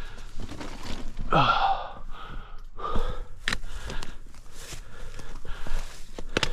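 A hiker breathing hard from a steep climb. About a second and a half in comes a voiced exhale that falls sharply in pitch, then more puffed breaths, with sharp clicks and scuffs of footsteps on rock.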